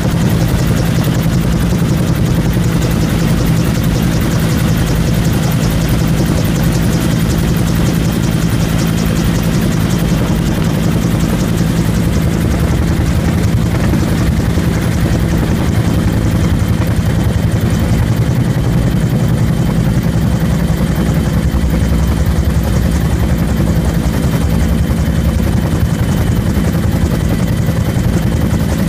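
Bell UH-1 "Huey" helicopter in flight, heard from on board: the steady, rapid beat of its two-blade main rotor over the turbine engine, with a thin, steady high whine.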